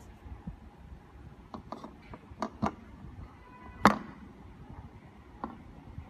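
Sharp metal clicks and clacks from a chrome pull-paddle cabinet panel lock being handled and worked, about six in all, the loudest a sharp snap a little before four seconds in.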